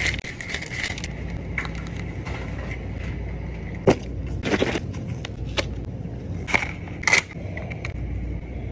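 Plastic food packaging being handled: rustling, with several sharp clicks and snaps as a clear plastic clamshell tray is worked open, over a steady low hum.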